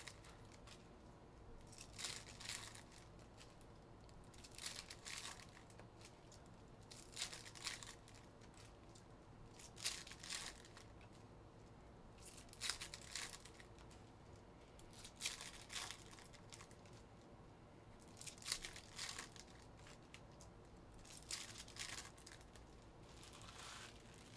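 Trading-card pack wrappers being torn open and crinkled by hand, one short crinkling rip about every two and a half seconds.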